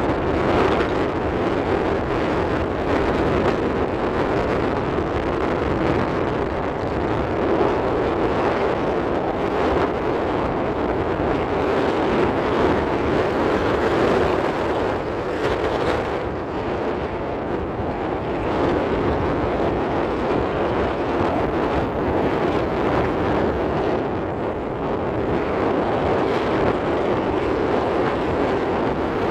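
Steady rushing wind noise over the microphone, even throughout, with no engine tone.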